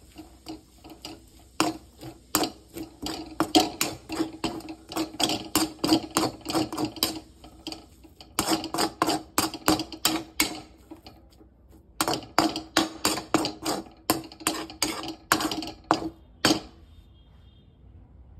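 Metal spatula knocking and scraping against a metal wok as noodles are tossed and stir-fried: a quick run of clanks, several a second, with two short pauses, stopping near the end.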